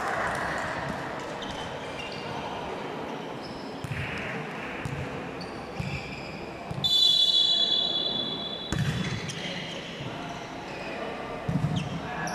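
Basketball bouncing on a court against the chatter of a crowd in a hall, with a whistle blown once for about a second and a half, about seven seconds in.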